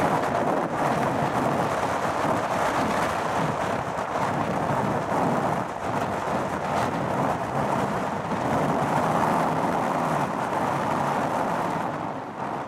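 Four Soloviev D-30KP turbofan engines of an Ilyushin Il-76TD running with a steady, rumbling roar that falls away abruptly at the very end.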